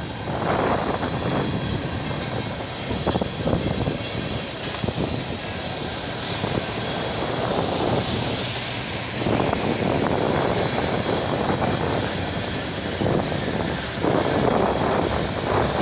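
CN freight train cars rolling past on the track: a steady rumble of steel wheels on rail, with frequent clicks and knocks through it.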